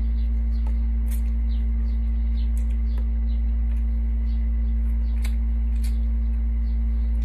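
A steady low hum, with a few faint clicks and smacks of people eating with their hands and chewing.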